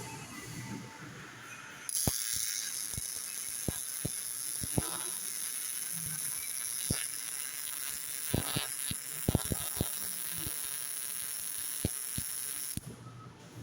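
Welding arc on a CNC welding table, hissing steadily with scattered sharp crackles. It strikes about two seconds in and cuts off shortly before the end.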